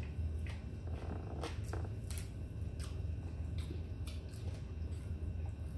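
Crispy fried chicken being pulled apart by hand and chewed, heard as scattered short crackles and clicks over a steady low hum.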